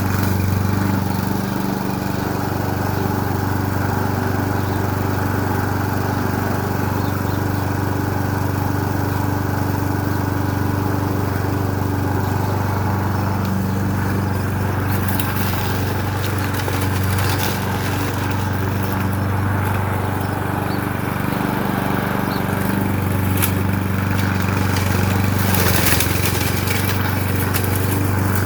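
Lawn mower engine running steadily while mowing over low bramble growth, with a few brief sharp clatters about halfway through and again near the end.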